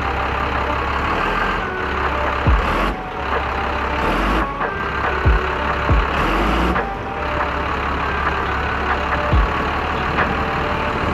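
Cummins 5.9 12-valve turbo diesel running steadily as the bus pulls away at low speed, exhausting through a straight pipe and a Banks high-flow muffler. A few brief low thumps come through.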